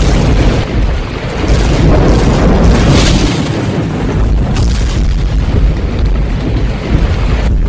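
Loud trailer-style soundtrack: dense music with heavy, booming low end and a rushing swell about three seconds in.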